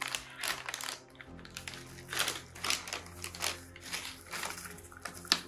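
Crinkling and rustling of plastic-foil MRE ration pouches being picked up and handled, in a quick irregular series of crackles with one sharp crackle near the end, over soft background music.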